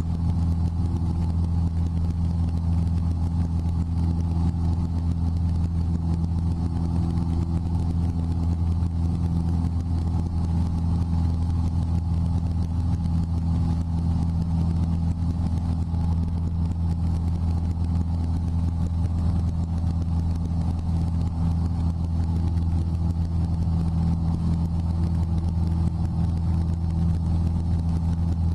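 Cessna 172's piston engine and propeller running steadily at climb power just after takeoff, a deep, even drone heard from inside the cockpit.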